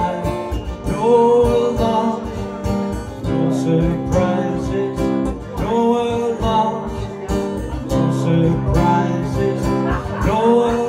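Live acoustic performance: a man singing while strumming an acoustic guitar, with a cajon keeping a steady beat of low thumps underneath.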